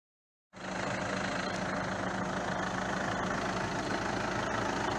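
A motor vehicle's engine running steadily, a constant hum with a wash of noise, cutting in suddenly about half a second in.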